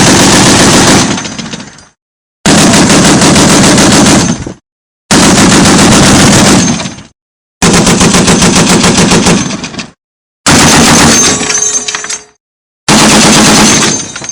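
.50 caliber machine gun firing six separate bursts, each about a second and a half of rapid, very loud fire trailing off in a fading echo, with brief silences between bursts.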